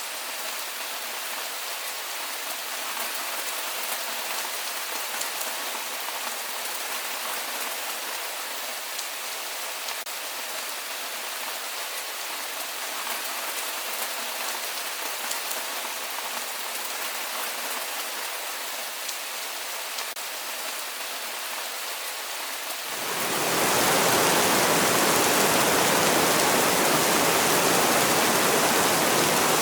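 Steady rainfall with faint scattered drop ticks. About three quarters of the way through it swells quickly into a louder, denser heavy downpour that stays steady.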